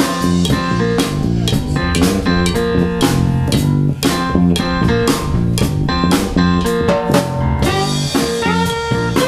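Small Latin jazz band playing an instrumental groove: electric bass, drum kit and hand percussion keep a steady beat under the keyboard. Near the end the trumpet and saxophone come in with held notes.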